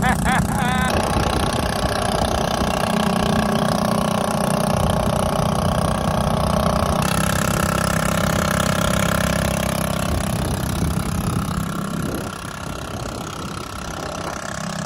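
Small Honda four-stroke outboard motor on an inflatable dinghy running steadily under way, towing, with a brief drop in loudness about twelve seconds in.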